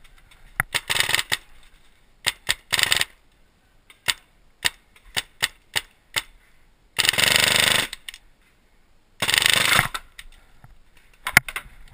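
Paintball markers firing: scattered single pops, and twice a rapid string of shots lasting about a second.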